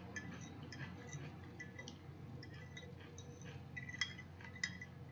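A metal fork clinking and tapping against a dish while eating salad: a scattered run of light, ringing clicks, the sharpest two about four seconds in.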